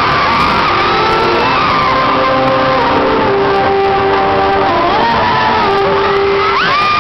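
Live pop band music in an arena, with long sustained notes over a loud, screaming crowd. Near the end comes a sharp rising shriek from the audience.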